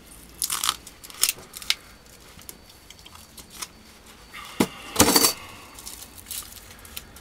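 Thin steel transformer laminations clinking and rattling against each other as they are handled and pulled apart on a tabletop, in scattered sharp clicks; a cluster of clinks about five seconds in is the loudest.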